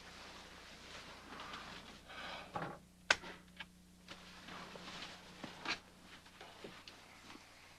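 Quiet room tone with a low steady hum, faint soft rustling and a single sharp click about three seconds in.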